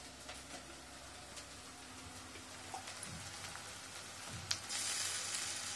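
Oily masala with a freshly added peanut-coconut paste sizzling softly in a pan over a gas flame, the sizzle growing much louder about three-quarters of the way in, with a light click just before.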